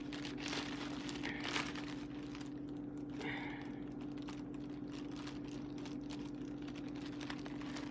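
Faint crinkling and light handling of plastic cheese packaging as slices of white American cheese are taken out, over a steady low hum.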